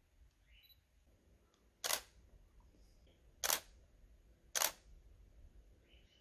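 DSLR camera shutter firing three single shots, each a short sharp click, about two, three and a half and four and a half seconds in.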